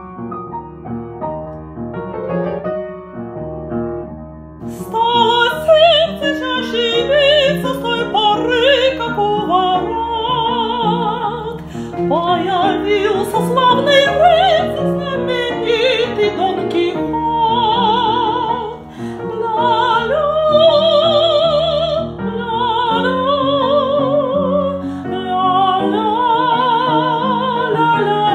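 Upright piano playing a classical accompaniment, alone for about the first five seconds. Then a high female voice enters over it, singing an operatic melody with wide vibrato.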